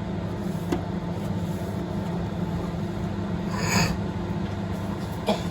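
A steady low mechanical hum, with a short scrape or rustle just under four seconds in.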